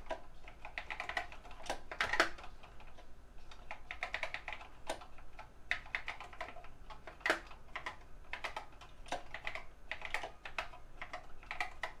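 Typing on an Apple IIe's built-in mechanical keyboard: irregular runs of key clicks with short pauses between words and lines.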